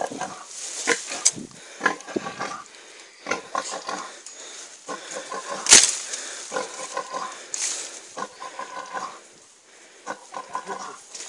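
A pig squealing and grunting in repeated short cries as a python coils around it. There is a sharp knock about six seconds in.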